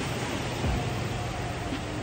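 Background music with a steady deep beat about once a second, over a constant rushing noise.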